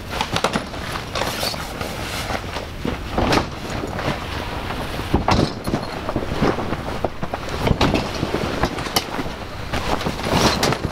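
Pop-up hub tent being collapsed by hand: nylon fabric rustling and flapping, with many sharp clacks and knocks as the panels and frame fold in, over wind rumbling on the microphone.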